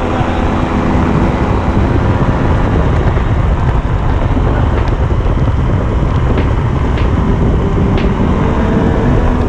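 Steady engine noise of a vehicle under way, mixed with heavy wind rushing over the microphone.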